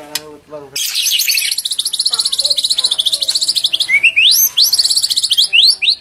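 White-rumped shama singing: a loud, fast run of high repeated notes from about a second in, turning into rising whistled sweeps near the end.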